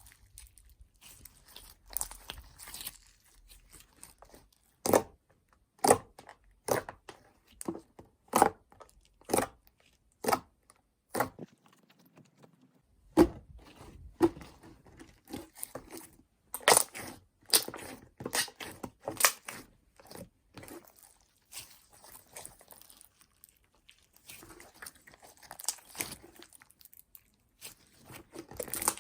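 Homemade slime being pressed and poked by hand: a string of sharp, crisp clicks and pops, many about a second apart, with fingernails clicking against it.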